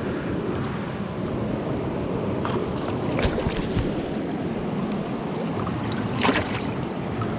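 Fast shallow river water rushing over rocks, a steady wash, with a few short splashes, the loudest about six seconds in as a rainbow trout is slipped back into the current.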